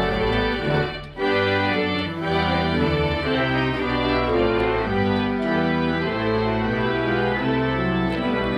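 The church's 1882 Hill pipe organ being played: full, held chords moving from one to the next, with a short break about a second in.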